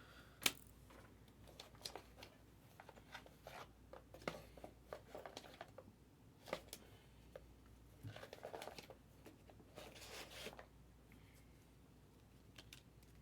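Faint handling of trading cards and their wrappers: scattered light taps and clicks with a few soft rustles.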